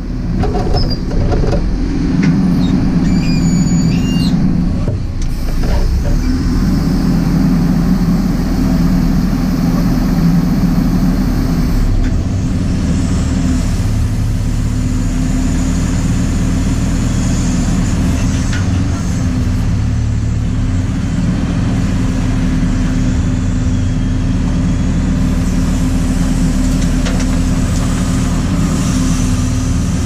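JCB 4CX backhoe loader's diesel engine running steadily, heard from inside the cab, while its hydraulics work the backhoe arm and bucket. The engine note swells under load twice early on, once briefly and once for several seconds.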